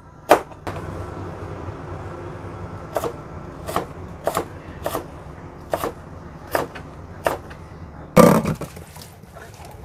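Knife cutting green beans and then carrot on a plastic cutting board: separate cuts spaced well apart, over a low steady hum. A louder, longer knock comes about eight seconds in.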